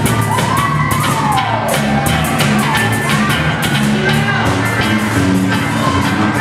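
Live band playing 1950s-style rock and roll on harmonica, bass guitar, acoustic guitar and drum kit, with a steady drumbeat. A high sliding cry rises and falls over the music in the first two seconds.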